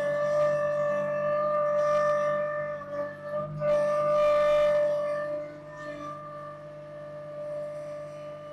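Kubota LX2610 compact diesel tractor running at a steady throttle, its engine under a high, steady whine that holds one pitch. The whine dips briefly about three and a half seconds in, and the whole sound gets quieter about five and a half seconds in.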